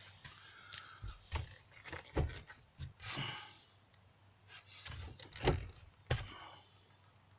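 Handling noise inside a car: several separate thunks and clicks, with a short rustle about three seconds in.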